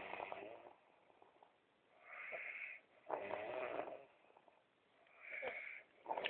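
A sleeping man snoring, one snore about every three seconds, each preceded by a short hissing breath.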